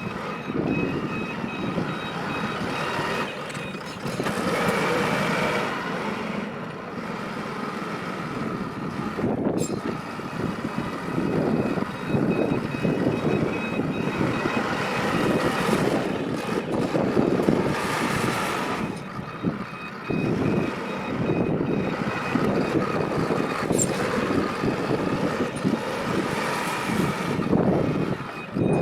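Backhoe loader's engine running and working throughout, with its reversing alarm beeping in stretches at the start and again through the second half.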